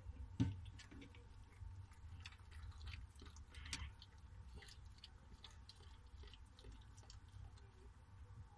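A whelping mother dog licking herself, with soft wet smacking and clicking sounds scattered through, and a single low thump about half a second in.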